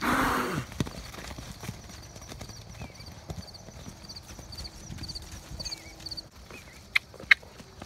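Hooves of a Morgan horse herd thudding on wet grass as the horses trot and canter about the pasture. A loud burst of noise comes at the very start, and two sharp knocks near the end.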